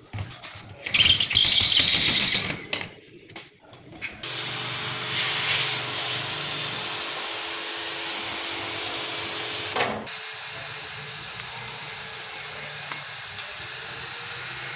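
Power-tool-like machine noise during an AC cassette service: a short loud hissing burst, then a steady hiss over a motor hum for several seconds. Midway it drops to a quieter, steadier running sound with a thin whine that rises slightly near the end.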